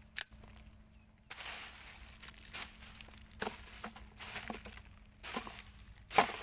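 Plastic bags and dry litter rustling and crinkling underfoot as someone walks through a trash pile, starting about a second in, with a few sharper crunches, the loudest near the end.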